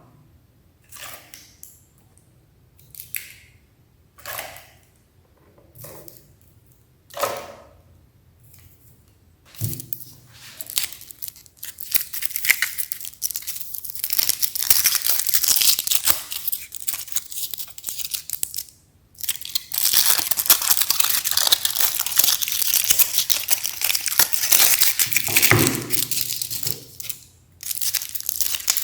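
Meat grinder crushing frozen chocolate ice cream: a few short crinkling rustles, then from about a third of the way in a dense, continuous crackling and crunching, broken by two brief pauses.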